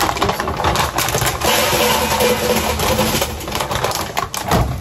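Popcorn chicken pieces clattering as they are dropped by hand into a foil-lined air fryer basket, with the plastic bag crinkling.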